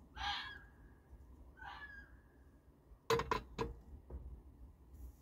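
Two short, distant cries, then four sharp bangs in quick succession a little after three seconds in, the loudest sounds here. The noise comes from someone unseen nearby messing about.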